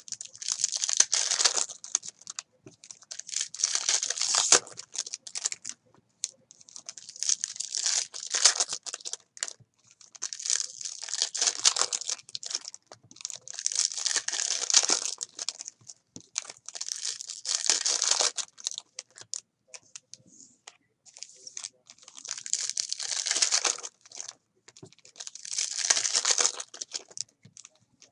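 Trading-card packs being torn open by hand, the foil wrappers crinkling, in repeated bursts every two to three seconds.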